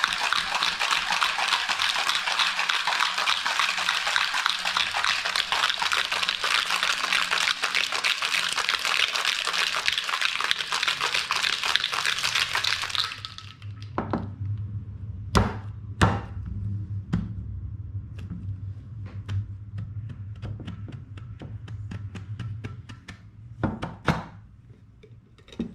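Metal cocktail shaker rattling hard with ice for about thirteen seconds, then stopping: the wet shake that chills a gin, cream and egg-white cocktail. A few sharp knocks follow as the shaker is handled, over a low hum.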